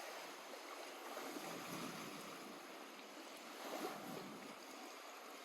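Lake water lapping gently at the shore: a soft, steady wash with small splashes.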